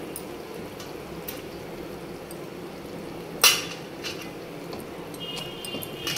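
Curry gravy simmering and bubbling in a pot as fish pieces go in, with a sharp metallic clink of a utensil on the pot about three and a half seconds in and a few more ringing clinks near the end.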